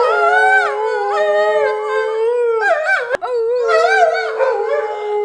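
Two dogs howling together in long, wavering, overlapping howls, with a brief break about three seconds in. They are howling in response to a siren.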